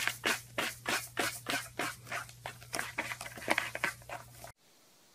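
Cat rubbing and mouthing its face against a corrugated cardboard scratcher, making rough scraping strokes about three a second over a low steady hum. The sound cuts off suddenly near the end.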